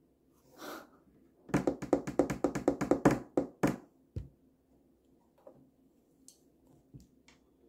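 A quick run of about twenty sharp taps in a couple of seconds, then a few scattered single taps.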